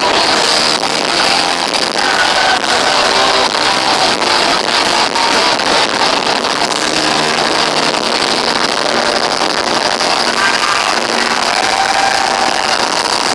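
Heavy metal band playing live, a loud, dense wash of distorted electric guitars, overloaded and muddy through a phone's microphone.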